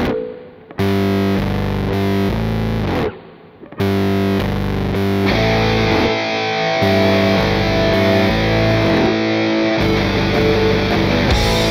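Rock music driven by a distorted electric guitar riff that breaks off briefly twice near the start, then plays on steadily.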